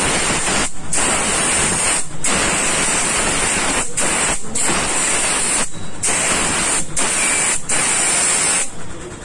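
Compressed air hissing from a blow-gun nozzle aimed at a motorcycle's self-start switch, blowing out the petrol it was just washed in. Long blasts broken by several brief pauses; the air stops near the end.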